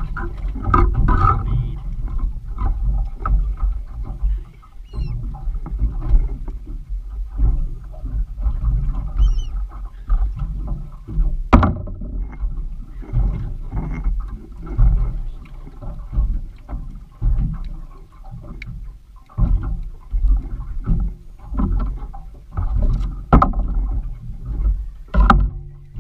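Water slapping and sloshing against a small boat's hull in irregular surges, with a heavy low buffeting on the microphone and a few sharp knocks on the boat.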